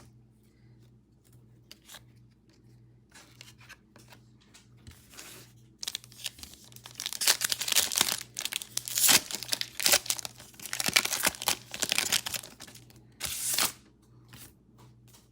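Trading-card pack wrapper being torn open and crinkled. Faint light clicks at first, then a loud stretch of crinkling from about six seconds in to about twelve, with one more short crinkle near the end.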